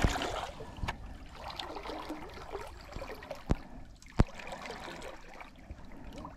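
Surfski paddling on calm lake water: water trickling and splashing from the paddle strokes, with two sharp knocks a little past the middle.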